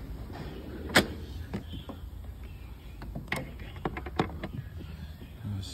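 Handling noises in a metal tool chest drawer: scattered clicks and knocks, the loudest about a second in and a quick cluster in the second half, over a low steady hum.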